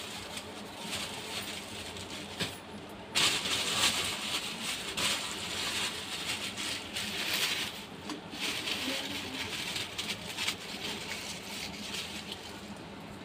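Raw mutton pieces being handled and put into a non-stick kadhai: uneven rustling and light knocks, loudest in patches between about three and eight seconds in.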